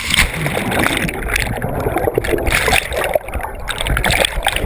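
A sudden splash as the camera goes into the lake, then loud, uneven churning and bubbling of water heard from underwater.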